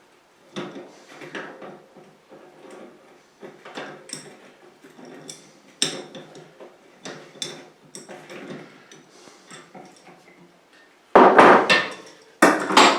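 Small metal parts and tools clinking and knocking as a bicycle rear hub is taken apart: nuts undone, the axle shaft pulled out and the loose ball bearings removed. Scattered light clicks, with two louder clatters near the end.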